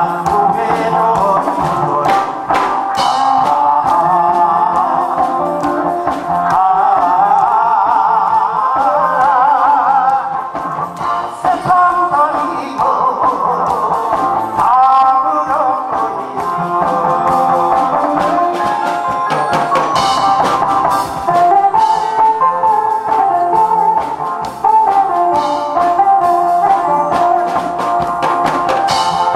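A man singing a Korean trot song into a microphone over a karaoke backing track with brass and drums. Near the end he stops singing and the backing track plays on.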